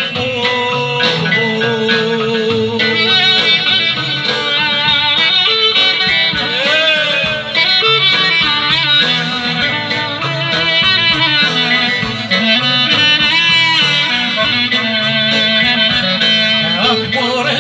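Live Greek folk band playing an instrumental passage through PA speakers: an ornamented lead melody with wavering, sliding notes over guitar accompaniment.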